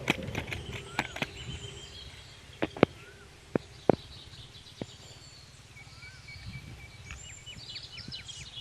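Outdoor ambience with birds calling in short whistles and a fast, high chirping trill in the second half, broken by several sharp knocks or clicks, the loudest pair a few seconds in, over a low rough rumble.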